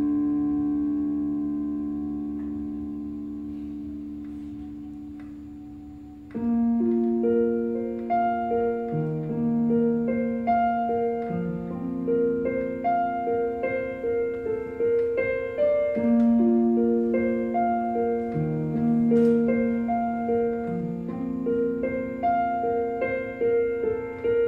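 Piano sound from a Yamaha stage keyboard: a held chord slowly fades away, then about six seconds in a steady, repeating pattern of broken-chord notes starts and runs on as an instrumental passage with no singing.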